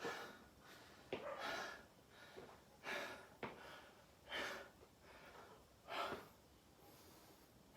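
A man breathing hard, heavy in-and-out breaths about every second and a half: he is winded from a set of calisthenics exercise.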